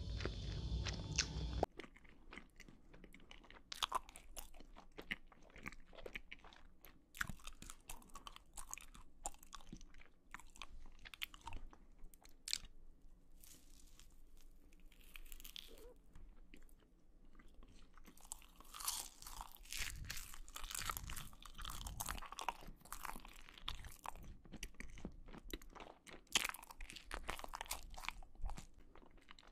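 Close-miked eating of giant marshmallows: many soft, sticky clicks and crackles of chewing and biting. The first couple of seconds are a louder, fuller eating sound that cuts off abruptly.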